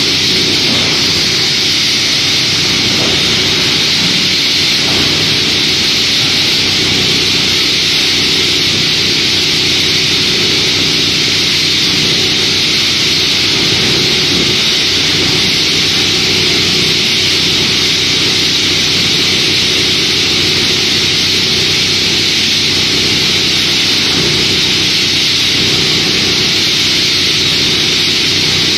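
Optima OGB80120 plastic granulator running steadily while a conveyor feeds it plastic offcuts: a loud, constant hiss over a low machine hum.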